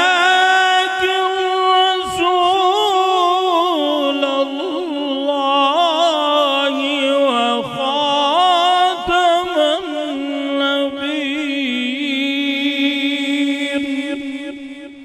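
A man reciting the Quran in a melodic tajweed style, holding one long unbroken phrase with wavering, ornamented turns in pitch. The phrase trails off near the end.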